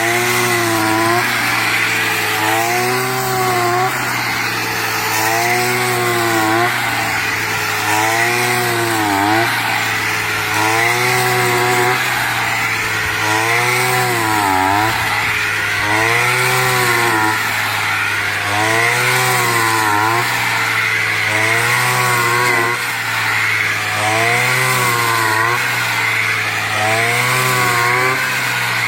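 Brush cutter engine running at high speed as it cuts rice stalks. Its pitch dips and recovers about every two seconds as each sweep of the blade loads the engine.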